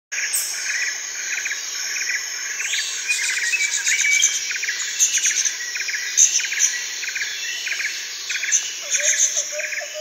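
Birds chirping in short repeated calls, about two a second, over a steady high insect trill.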